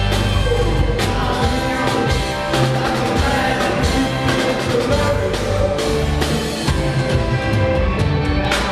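Celtic rock band playing live, with a drum kit keeping a steady beat under electric guitars and keyboards.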